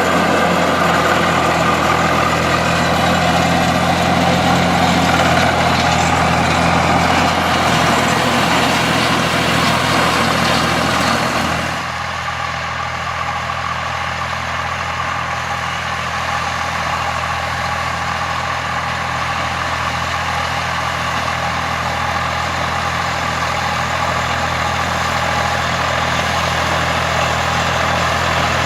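Volvo BM farm tractor's diesel engine running steadily while ploughing. About twelve seconds in, the sound becomes quieter and duller and stays steady after that.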